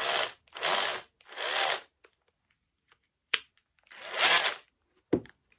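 Cordless drill motor run in short trigger bursts: three back to back, then a fourth about four seconds in, with two brief clicks between them. It runs noisy because its plastic cooling fan broke inside when the motor overheated.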